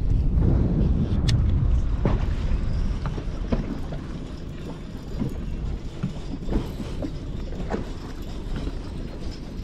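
Wind buffeting the microphone over choppy lake water, a low rumble that is loudest in the first two seconds, with scattered light clicks and knocks.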